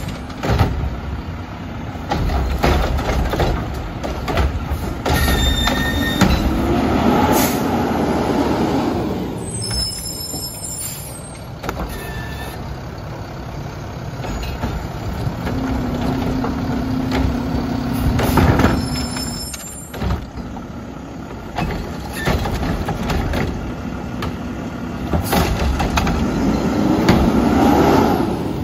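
Front-load garbage truck with a Curotto-Can automated cart arm at work: the diesel engine revs up twice, rising in pitch, to drive the hydraulics as the arm lifts and tips carts. Bangs and sharp hisses come in between, with a steady hum for a few seconds in the middle.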